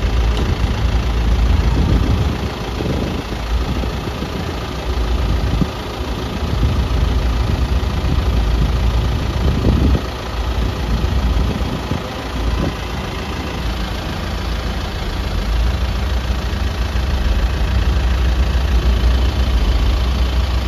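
Vehicle ferry's engine running steadily while under way: a loud, continuous low rumble that swells and dips, with an even hiss over it.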